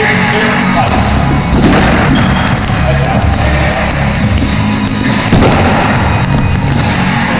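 Rubber dodgeballs being thrown and smacking against players, the walls and the floor, with the sharpest hits about a second and a half in and again just past five seconds. Music and players' voices sit underneath.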